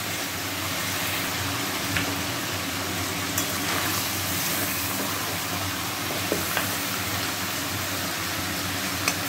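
Chicken pieces sizzling steadily as they fry in oil in a wok, turned over with a spatula, with a few light clicks of the spatula against the pan.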